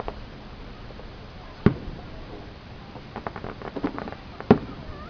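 Aerial fireworks bursting: two loud, sharp bangs about three seconds apart, with a run of smaller pops between them.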